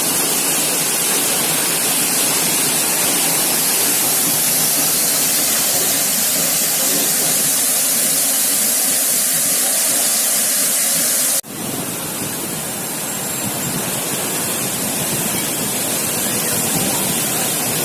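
Waterfall rushing: a steady, loud wash of falling water. It breaks off sharply about eleven seconds in and starts again at once, a little quieter at first.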